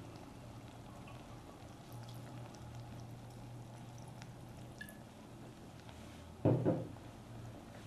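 Faint kitchen sounds over a steady low hum: scattered light clinks, and a short, louder double splash or knock about six and a half seconds in.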